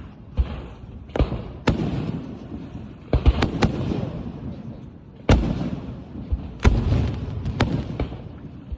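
Aerial firework shells bursting one after another: about eight sharp bangs, some in quick pairs, each trailing off in a low rolling rumble.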